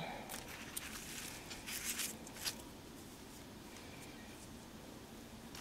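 Soft rustling and a few light clicks of paper craft pieces being handled by hand, mostly in the first half, then quiet.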